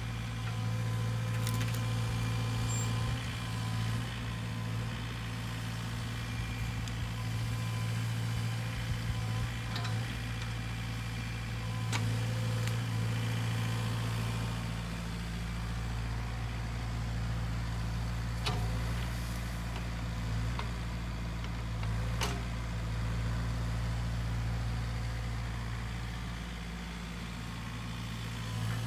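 Sany SY50U mini excavator's diesel engine running steadily at a constant speed, with a few short knocks and clicks.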